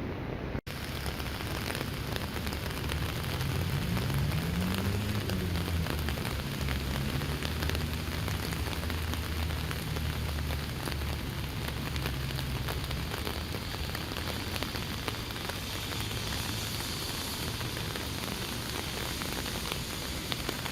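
Heavy downpour of rain pattering and splashing on hard surfaces, a dense hiss full of fine drop ticks. A low hum runs under it, rising and falling in pitch once early on and fading out about two-thirds of the way through.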